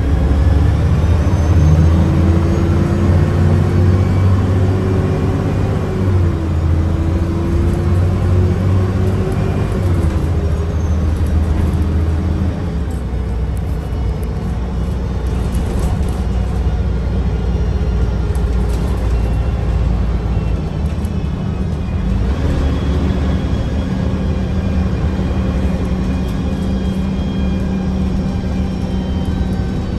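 Mercedes-Benz O405NH bus under way, its engine running with a loud whine from the Voith automatic gearbox. The whine rises in pitch, dips briefly about six seconds in and climbs again. It fades out, then comes back at a steadier pitch for the last several seconds.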